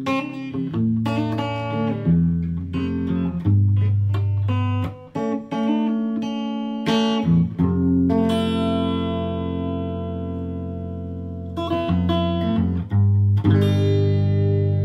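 Electric guitar being played: picked chords and single notes, with one chord left ringing for about four seconds in the middle before the picking resumes.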